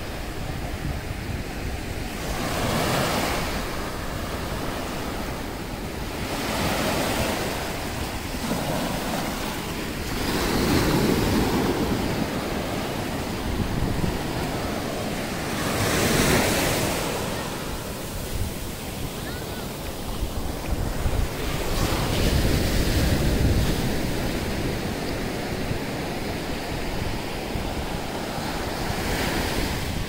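Ocean surf breaking and washing up a sand beach, each wave swelling louder every few seconds.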